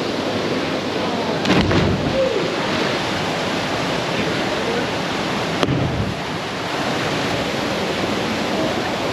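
Waterfall rushing steadily into a lagoon, a constant even roar of falling water, with a brief louder burst about a second and a half in.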